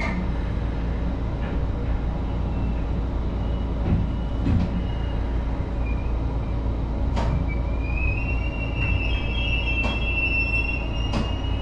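Kintetsu 23000 series Ise-Shima Liner limited express heard from inside at the front, pulling out of a station: a steady running rumble with a few clicks from the wheels over the track. About eight seconds in, a high thin whine comes in and rises slightly.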